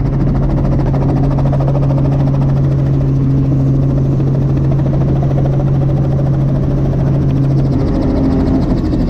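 Helicopter engine and rotor noise heard from inside the cabin in flight: a loud, steady low drone whose deepest tone shifts about eight seconds in.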